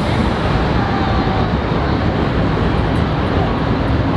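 Fireworks display going off continuously: a dense, steady rumble and crackle of many bursts run together, with no single bang standing out.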